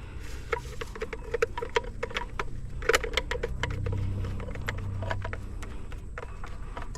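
Hand screwdriver tightening a mounting screw: a run of small irregular metal clicks and scrapes.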